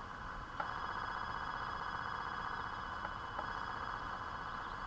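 Homebrew SSB transceiver's receiver putting out steady hiss through its speaker, with a few faint steady high whine tones above it; a click about half a second in, after which the hiss comes up.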